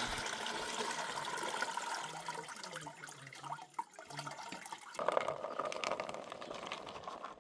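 Water running and splashing, with a change in its sound about five seconds in.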